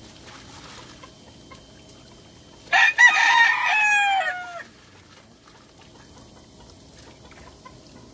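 A rooster crowing once: a single call of about two seconds that drops in pitch at the end.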